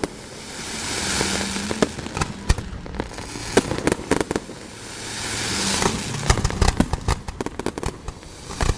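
Aerial fireworks going off in a dense run of sharp cracks and pops. Two hissing swells build and fade, about a second in and again around six seconds.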